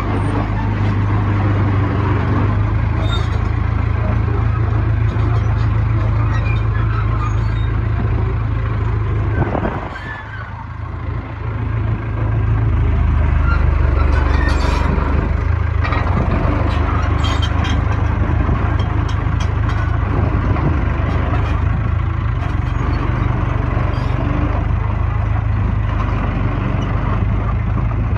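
Bulldozer's diesel engine running steadily with a deep hum. The engine note drops about ten seconds in and comes back up a couple of seconds later.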